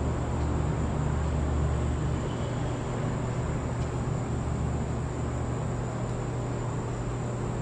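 Steady outdoor background noise: a low rumble that eases slightly a couple of seconds in, an even hiss, and a thin constant high whine, with no speech.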